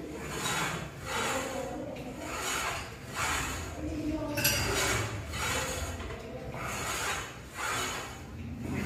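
Cable machine in use for seated rows: the steel cable runs through its pulleys with a rasping swish about once a second as the handle is pulled in and let back out.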